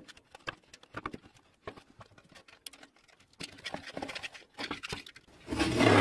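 Light clicks and rustling as a rim tape is pressed into a bicycle wheel's rim, then, about five and a half seconds in, a louder scraping and rattling as the spoked wheel is lifted and turned on the workbench.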